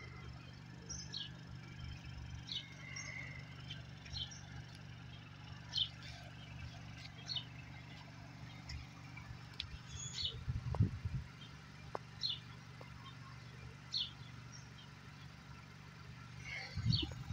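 Steady low rumble of a car's engine running, with a small bird giving short, high chirps every second or two. A couple of low thumps about two-thirds of the way in.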